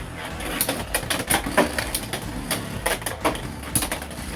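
Two Beyblade X spinning tops, Phoenix Feather and Hell's Chain, whirring in the stadium and colliding in a rapid, irregular series of sharp clacks, the big hits of a battle.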